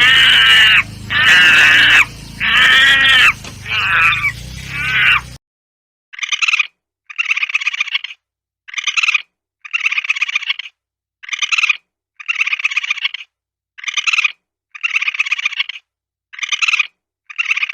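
Animal calls: about five loud, arching, high-pitched calls over background noise, then, after a cut about five seconds in, a second recording of roughly eleven shorter calls repeated at an even pace.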